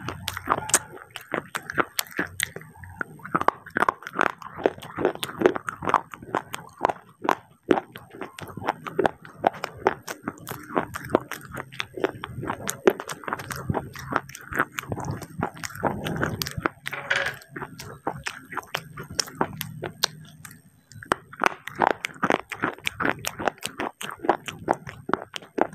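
Close-mic biting and chewing of crunchy baked clay pieces: dense, rapid crackles and crunches throughout.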